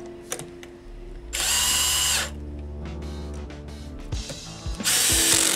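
Cordless drill running in two short bursts, the second shorter than the first, driving the screws that hold the spring retainer onto an HPLC pump's piston assembly.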